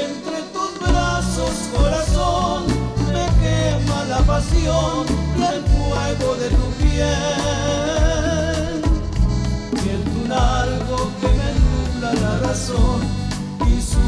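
A romantic song with a backing track carrying a steady bass line, a woman singing a melody with vibrato, and bongos played by hand with frequent short taps.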